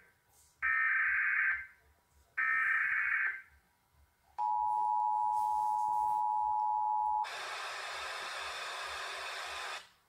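Emergency Alert System-style broadcast alert: two short buzzing digital data bursts, then the steady two-tone attention signal for about three seconds, then a burst of static hiss that cuts off suddenly near the end.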